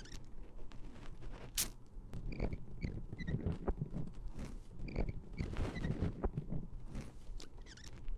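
Close-miked ASMR handling sounds: a busy run of small clicks, taps and rustles, with short squeaky chirps scattered through it.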